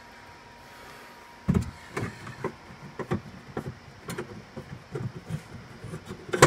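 Irregular knocks and clicks of a 10 mm ratcheting wrench and a hand working inside a car door shell, feeling for the hard-to-reach bolt that holds the outside door handle. The knocks start about a second and a half in.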